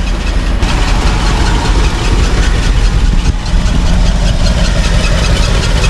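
1969 Ford F250's engine idling with a fast, even tick, which the men take for a leak at the gasket under the carburetor.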